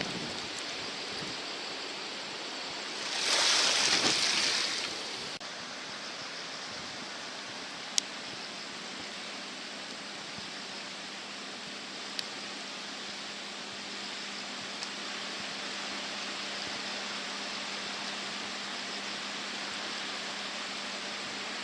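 Flood-swollen river water rushing steadily after a typhoon, with a louder whoosh lasting a second or two about three seconds in and a couple of single sharp clicks later on.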